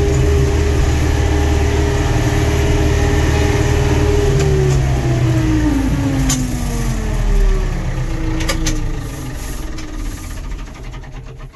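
David Brown 1490 tractor's four-cylinder diesel engine running while driving, heard from inside the cab. About five seconds in its pitch falls as the engine slows, and it grows quieter near the end.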